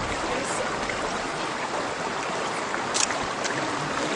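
Steady rush of flowing stream water, with a sharp click about three seconds in.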